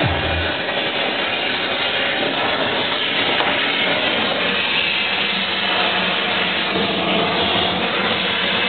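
Oxy-fuel gas torch flame hissing steadily as it heats steel and a filler rod for welding.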